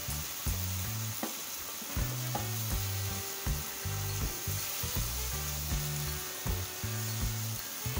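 Prawns, onion, tomato and peppers sizzling in a non-stick frying pan with a steady hiss. A slotted spatula stirs them, scraping and knocking against the pan many times.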